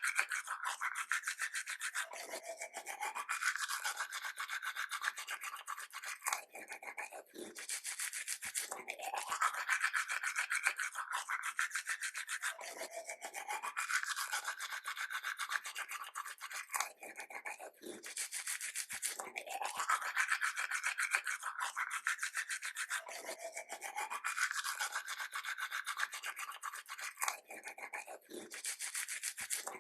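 Toothbrush scrubbing teeth: a steady, rapid bristly scrubbing whose tone shifts up and down, broken by short pauses every few seconds.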